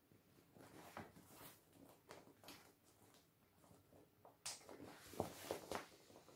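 Faint rubbing and handling noises on the vinyl of an inflated paddling pool, a scatter of small scrapes and clicks. About four and a half seconds in, louder crinkling strokes as the pool is lifted and tilted.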